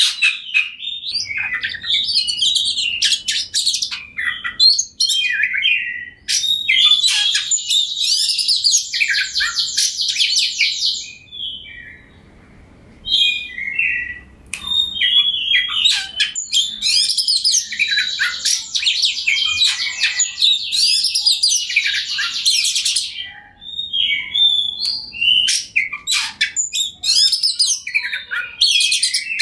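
An Oriental magpie-robin sings varied whistled and chattering phrases. Two long stretches of fast trilling run several seconds each, the first about six seconds in and the second about sixteen seconds in, with a brief pause in between.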